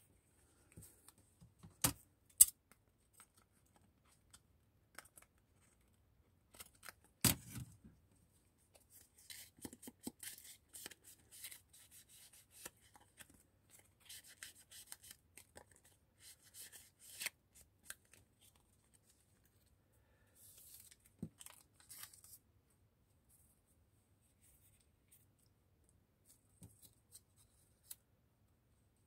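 Paper craft materials being handled by hand on a cloth-covered table: a few sharp knocks in the first eight seconds, then two stretches of quick, crisp paper sounds like cutting and rustling.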